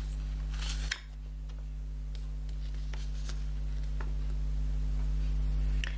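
Rustling and crackling of a fold-out paper leaflet being opened out, loudest just under a second in, then a few lighter paper crackles, over a steady low electrical hum.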